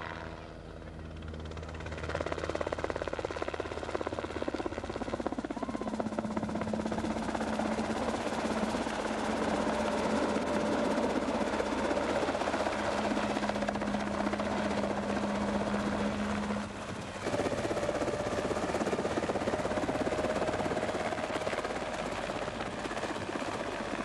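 Hummingbird helicopter with a Donovan drag-race V8 engine flying low past, engine and rotor running steadily. It gets louder about two seconds in, with a brief drop in sound about seventeen seconds in.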